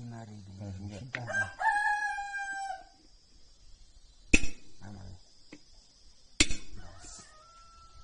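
A rooster crows once, a held call that sags in pitch at the end, about two seconds in. Then two sharp metallic hammer strikes about two seconds apart, a hammer working a brake shoe on a brake drum.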